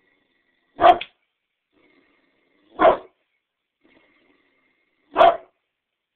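Great Dane barking: three single barks about two seconds apart, alert barks that the owner takes as aimed at someone outside.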